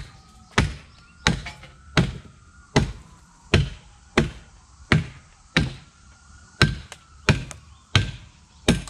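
A hand-held wooden block knocking down on a wooden transom board, driving it into steel brackets. About a dozen sharp wood-on-wood knocks at a steady pace, roughly one every 0.7 seconds.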